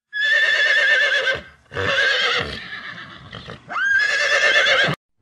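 Horse whinnying three times. Each call lasts about a second and has a shaky, wavering pitch; the last one cuts off abruptly.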